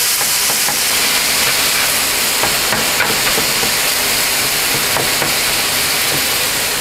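Minced beef frying in a pan: a steady sizzling hiss with scattered small pops.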